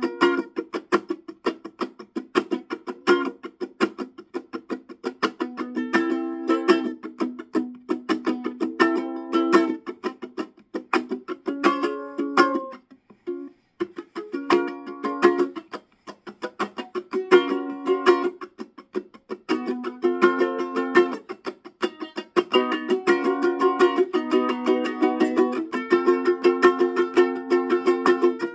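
Ukulele strummed in a quick, even rhythm, playing an instrumental chord passage with no singing. The strumming thins out briefly twice near the middle.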